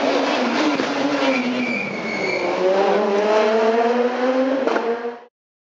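Rally car engine passing a spectator stage: the pitch sinks slightly as it slows, then climbs steadily as it accelerates away. A single sharp pop comes near the end, and the sound cuts off suddenly just before the end.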